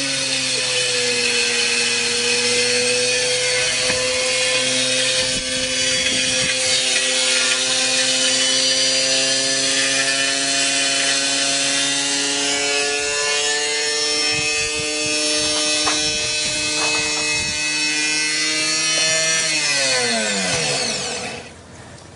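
Whirlpool washing machine in a high-speed spin being run to destruction: a loud, steady whine from the motor and drum with rattling and knocks. About 20 seconds in it winds down, its pitch falling sharply.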